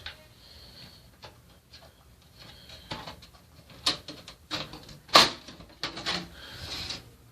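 A series of sharp clicks and knocks as a computer tower case is opened, its side panel being worked loose and handled, with the loudest knock about five seconds in.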